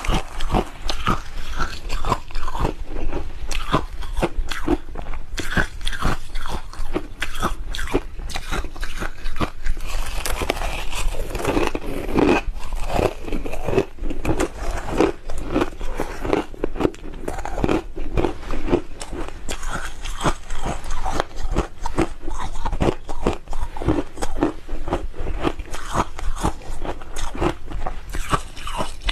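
Hard crushed ice being bitten and chewed close to a clip-on microphone: a rapid, continuous run of sharp crunching cracks.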